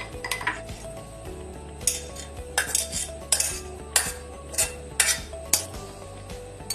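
Kitchen utensil clinking and scraping against cookware, about ten sharp strokes at uneven intervals.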